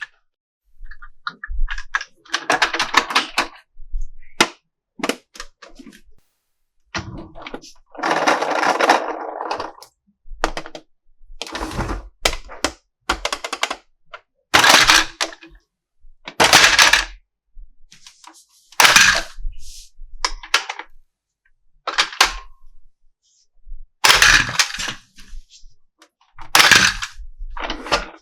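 Plastic toy packaging and toy parts being handled: a string of short rustling, scraping and clicking bursts with brief pauses between them.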